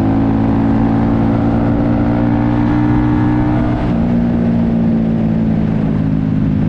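Vehicle engine running steadily with a low rumble, its pitch stepping down slightly about four seconds in.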